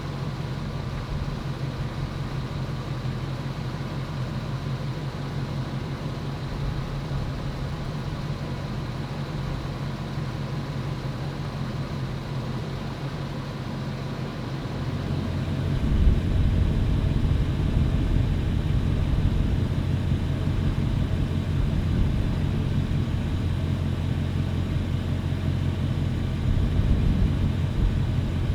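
Ford Excursion's engine idling with a steady low hum. It grows louder about halfway through, with a single thump at that point.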